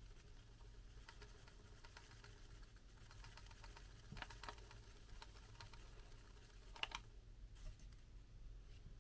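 Faint rustling and light clicks of a folded paper spider being handled, with a few sharper crinkles about four seconds in and again near seven seconds, over near silence.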